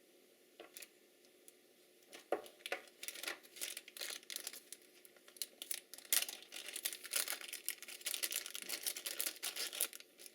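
Packaging being handled and unwrapped: crinkling and rustling with a dense run of small crackles, a few faint clicks at first, then busy handling from about two seconds in.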